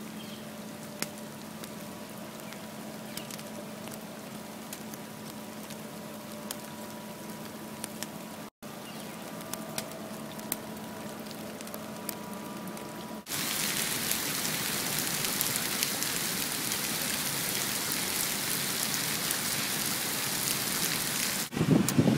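Steady hiss and patter of heavy rain with scattered light ticks of drops. The sound cuts out briefly twice and becomes louder and fuller about thirteen seconds in.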